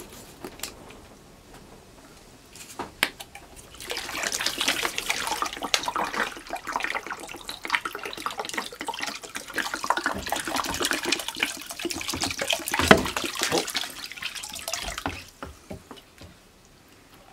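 Cleaning vinegar glugging out of an upturned plastic bottle into a crate already full of liquid, filling a soaking bath for rusty drill press parts. The pouring starts about four seconds in and stops a couple of seconds before the end, with a single knock near its end.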